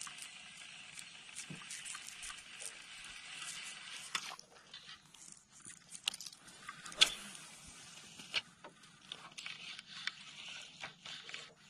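Faint clicks and taps of a fishing rod and reel being handled through a cast, the sharpest a little past halfway, over a soft hiss that drops away about four seconds in.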